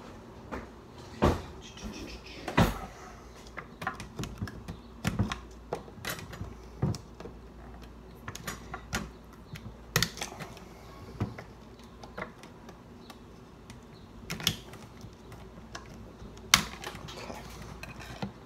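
Irregular clicks and knocks of hard plastic prop-rifle parts being handled and test-fitted by hand.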